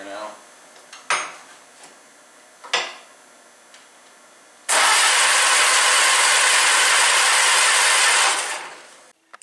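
1952 Case VAC tractor's starter cranking the engine for nearly four seconds without it catching, then winding down; two sharp clicks come before it. The engine does not start.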